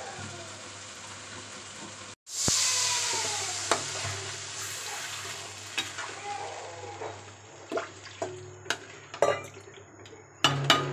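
Thin gravy in a steel kadhai sizzling and bubbling, loudest just after it starts a couple of seconds in and then slowly dying down. A metal ladle stirs the gravy and knocks against the pan several times, most often near the end.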